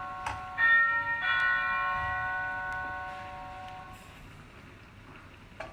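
Bell-like chimes ringing: two new strikes on different pitches about half a second apart, near the start, each ringing on and slowly dying away over a few seconds.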